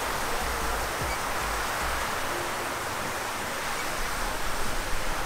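Lake fountain's tall water jets spraying, the spray falling back onto the lake: a steady rushing hiss.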